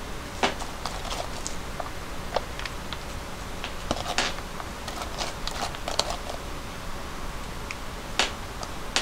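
Scattered light clicks and taps of hands handling food and kitchenware: sliced cucumber laid onto bowls of noodles and a plastic colander moved about, over a steady faint hiss.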